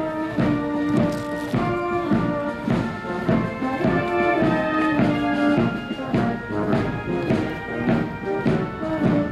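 Military marching band playing a march live on brass instruments, over a steady drum beat of about two strokes a second.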